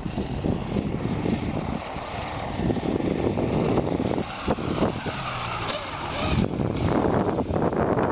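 Panther XL microlight trike's engine and propeller running as the trike lands on grass and rolls out, mixed with heavy, uneven wind rumble on the microphone.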